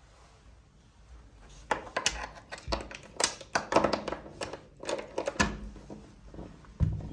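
A run of irregular clicks and knocks, starting about two seconds in, with a heavier thump near the end, in a small room.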